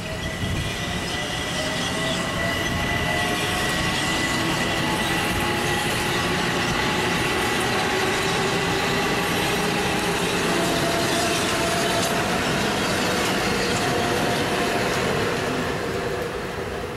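Electric multiple-unit commuter train running past close by: a steady rumble of wheels on rail, with several motor whines gliding slowly down in pitch and a high steady squeal that fades out about halfway through. The sound drops away near the end.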